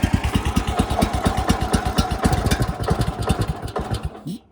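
Small gasoline engine of a portable sawmill catching and running roughly in rapid, uneven pulses, then dying abruptly near the end: it was started without the choke on.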